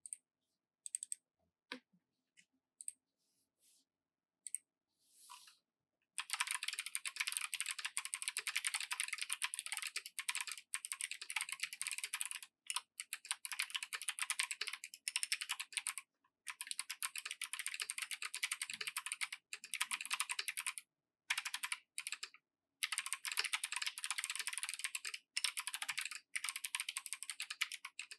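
Fast typing on a 75% mechanical keyboard with Kailh Box Jade clicky switches, a brass plate and PBT keycaps: a few separate keystrokes at first, then from about six seconds in a dense stream of sharp clicks broken by brief pauses.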